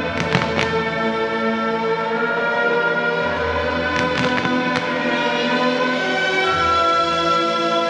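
Music with long held notes, broken by the sharp bangs and cracks of fireworks: a quick run of three just after the start and another cluster about four seconds in.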